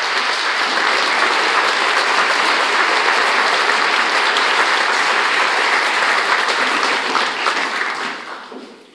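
Theatre audience applauding steadily, a dense crackle of many hands clapping that dies away over the last second or so.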